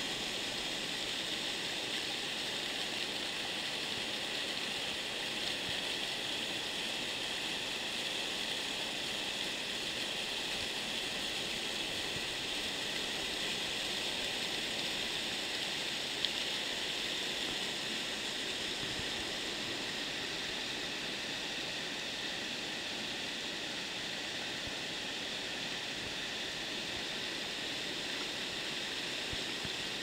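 Small waterfall, with thin streams of water falling and splashing over mossy rock, making a steady rush.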